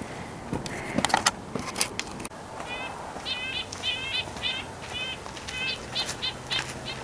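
A bird calling with a run of short, repeated high chirps, about two or three a second, starting a little over two seconds in. A few light clicks come before it.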